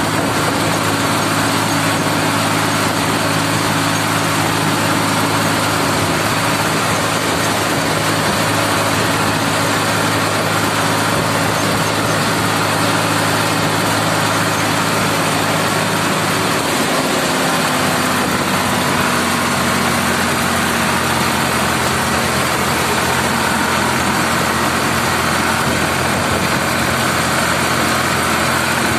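Ford 3600 tractor's three-cylinder engine running steadily under the driver's seat as the tractor drives flat out on the road. A little past halfway the engine note drops slightly and settles at the new pitch.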